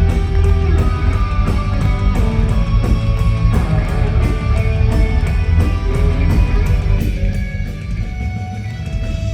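Heavy metal band playing live, electric guitars to the fore over bass and drums, with steady regular drum and cymbal hits; the music thins out a little near the end.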